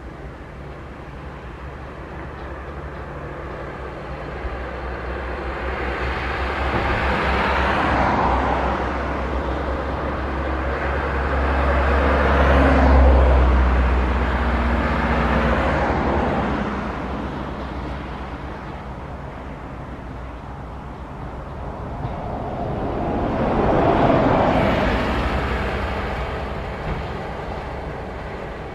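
Jet engines of an Airbus narrow-body twinjet on final approach. The rushing engine noise swells and fades three times, loudest about halfway through, over a steady low rumble.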